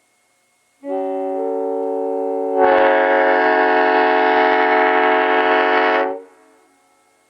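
Nathan Airchime M5 five-chime air horn, scallop-base type, blown in one blast of about five seconds. Its chord starts softer, with bells coming in one after another, then opens up louder and fuller about two seconds in, and cuts off with a short ring-out. The horn is in good shape but badly needs a tuning job.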